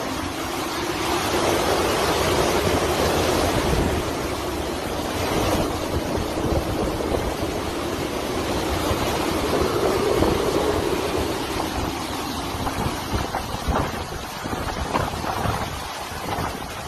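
Hurricane-force wind and driving rain, loud and gusting, with the wind buffeting the microphone. The gusts swell and ease, and the noise thins near the end.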